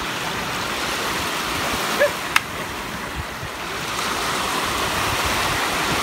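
Sea waves breaking and washing through the shallows in a steady rush. About two seconds in there is a brief short call and a single sharp click.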